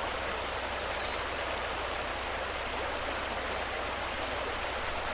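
Steady, even rush of running water, a flowing stream ambience.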